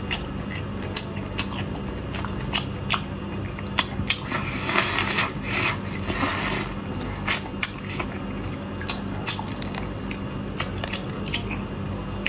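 Close-up eating sounds of raw soy-marinated shrimp: many short, sharp cracks and clicks of the thin shell being peeled by hand and bitten, with a longer wet sucking sound about four to seven seconds in as a shrimp is held to the mouth.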